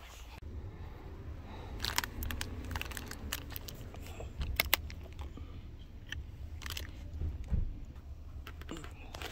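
Close handling sounds: the plastic cap of a sports-drink bottle twisted open with sharp crackling clicks, then a hiking boot handled and pulled off, over a low steady rumble.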